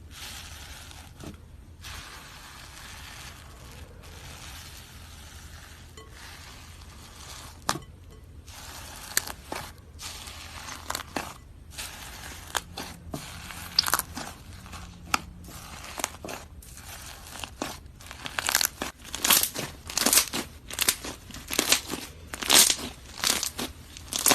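Slime being squished and stretched by hand, giving sticky crackles and sharp clicks that come thicker and louder over the last several seconds. A low steady hum runs underneath.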